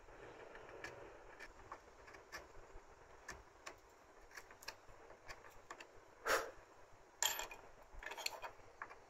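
Small carving chisel paring and scraping a recess into a wooden block: faint scraping strokes with scattered light clicks, and a few louder, sharper cuts past the middle and near the end.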